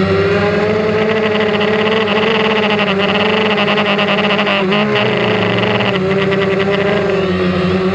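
DJI Phantom quadcopter's motors and propellers whining steadily in flight, heard from on board, with the pitch dipping briefly about five seconds in.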